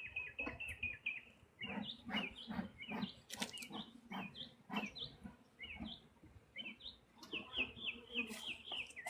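A bird chirping: a fast trill of repeated high notes, then a string of separate sharp chirps, with a few clicks a little over three seconds in.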